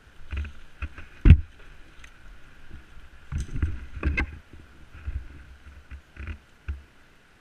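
Irregular thumps and rustling of dry brush and leaves close to a body-worn camera as its wearer moves about, with one sharp snap or knock about a second in and a denser run of knocks around the middle.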